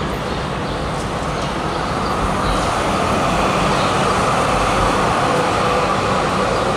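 Yarra Trams B2-class articulated tram passing close by on street track. Its running noise grows louder about two seconds in and then holds steady.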